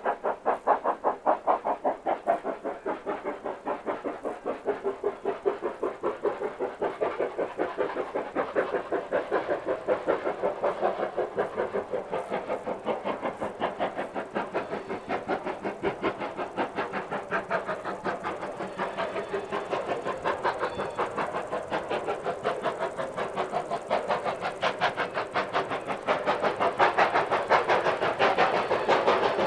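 Industrial steam tank locomotive working hard up a steep bank, its exhaust giving a rapid, even beat of about four to five chuffs a second that grows louder near the end as it approaches.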